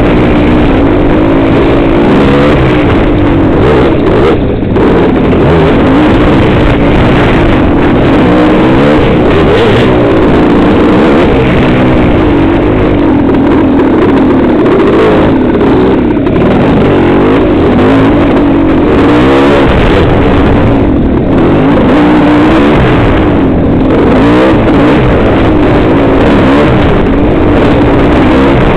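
Off-road dirt bike engine running hard and loud close to the microphone, its pitch rising and falling continually as the throttle is worked on and off.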